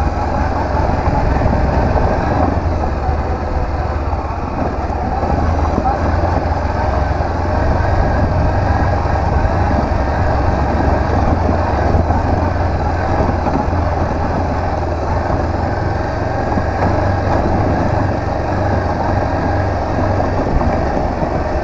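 Honda CB500X parallel-twin motorcycle running steadily under way, heard through a rider's microphone with heavy wind and road noise.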